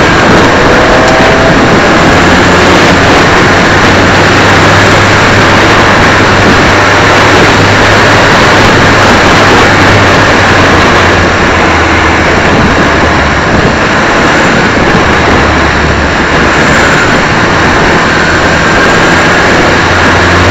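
Suzuki Swift race car at racing speed: its engine running steadily under a loud, constant roar of wind and road noise on a low-mounted onboard microphone.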